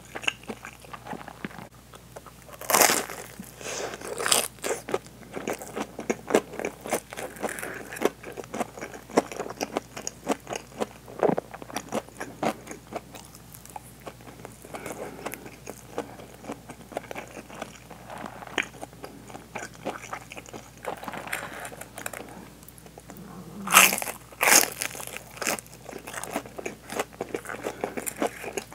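Mouth sounds of someone eating a deep-fried, breaded hanpen fish cake with cheese: crunchy bites into the fried coating, with two loud bites a few seconds in and two more near the end, and chewing with many small clicks in between.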